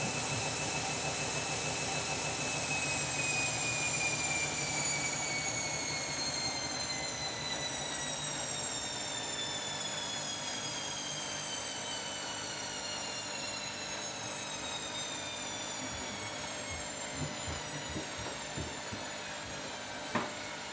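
Washing machine drum spinning down after a spin, the motor's high whine falling slowly in pitch as the drum coasts to a lower speed. A single sharp click near the end.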